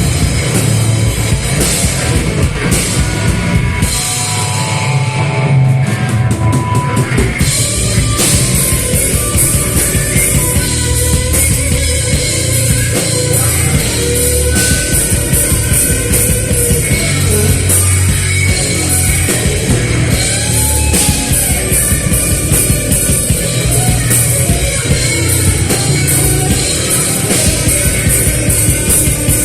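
Live rock band playing a song loudly, with a drum kit driving it. The low end drops out for a few seconds about four seconds in, then the full band comes back in around seven seconds.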